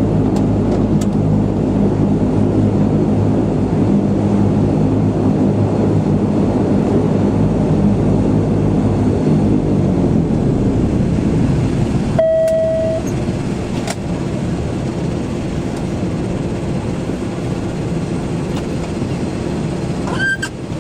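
Cabin noise inside a Dash 8-100: the twin turboprop engines and propellers drone steadily with a humming tone, which fades out about halfway through as power comes back during taxi after landing. A lower, even rumble is left. A brief single tone sounds just after the middle.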